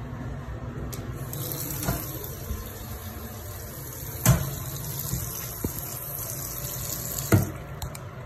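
Bathroom sink faucet running water into the basin, turned on about a second in and shut off near the end, with a few sharp knocks along the way.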